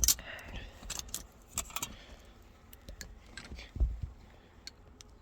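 Light metallic clinks and rattles of hand tools and door-handle hardware being worked inside a car door, coming irregularly, with one low thump about four seconds in.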